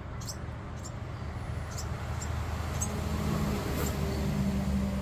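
Baby birds peeping: short, high-pitched cheeps repeating every half second or so, over a steady low hum.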